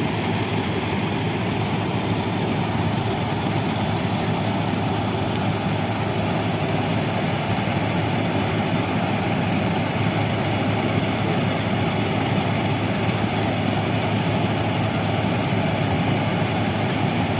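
Diesel engine of a railway track maintenance machine with a conveyor boom running with a steady, even drone, with a few faint light clicks over it.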